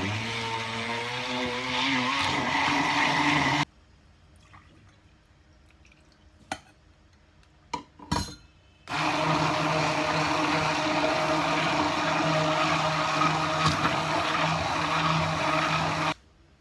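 Electric kitchen blender running in two spells. The first lasts about three and a half seconds, with its pitch sinking as it goes. After a pause with a few clicks and knocks, it runs steadily again for about seven seconds and stops abruptly near the end.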